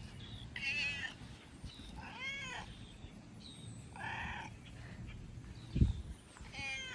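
Domestic cat meowing, three separate meows about two seconds apart and a fourth starting near the end. A short thump comes just before the last meow.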